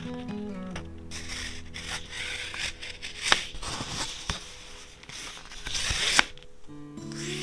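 Paper and card being handled: dry rustling and scraping of the sheets, with two sharp clicks, one about halfway and one near the end.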